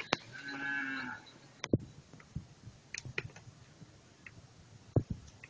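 A short animal call, about a second long, shortly after the start, followed by a few scattered light clicks and taps.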